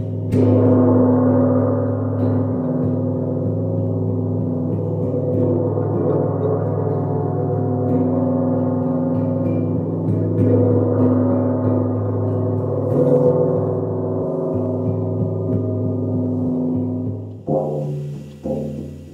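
Gong ringing in a long, sustained wash of many overlapping, shimmering tones that starts abruptly. Near the end the wash cuts off and a few shorter struck notes follow.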